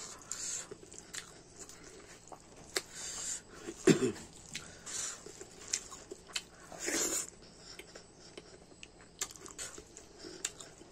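Close chewing and lip smacking of a mouthful of rice and curry eaten by hand, with small wet clicks of fingers working the food on a steel plate. Two louder mouth sounds come about four and seven seconds in.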